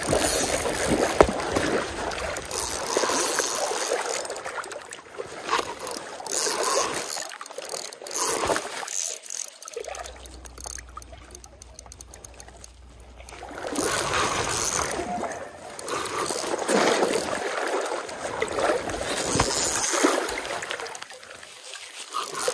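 Stream water sloshing and splashing around the legs of someone wading after a hooked fish, swelling and easing as they move. A run of rapid clicks near the middle.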